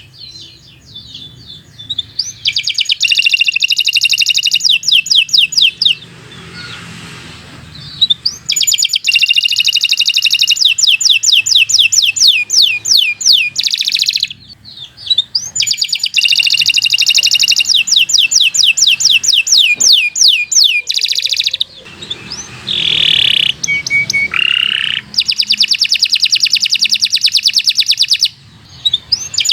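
Domestic canary singing long, fast rolling trills of rapidly repeated high notes. There are four long rolls of several seconds each, separated by short pauses and a few shorter notes.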